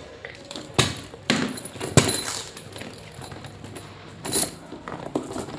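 A new handbag being handled: a few sharp clicks and small clinks, like its metal hardware, and a louder rustle about four seconds in.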